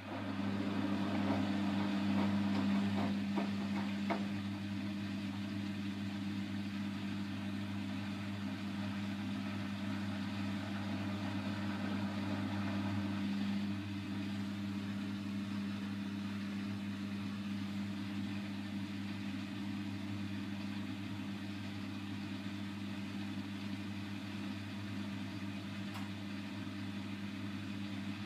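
Bosch WAY32742 front-loading washing machine running an Easy-care cycle: the drum turns with a steady low hum under a whirring rush. The sound eases a little about halfway through.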